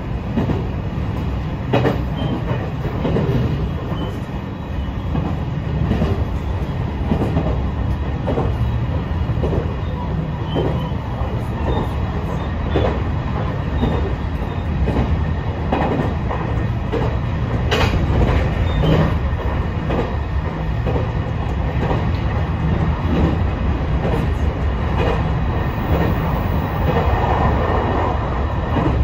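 JR East E721 series electric train running along the line, heard from inside the front car: a steady low rumble of wheels on rail, with scattered clicks and knocks from the track.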